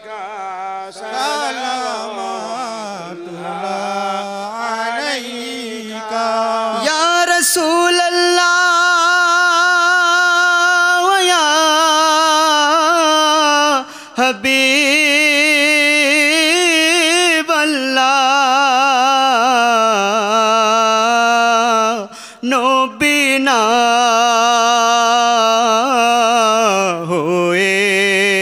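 Male voice singing an Islamic devotional salam (qiyam) to the Prophet through a microphone, drawing out long held notes with a wide, wavering vibrato. The singing grows louder about seven seconds in, with brief breaks for breath around fourteen and twenty-two seconds.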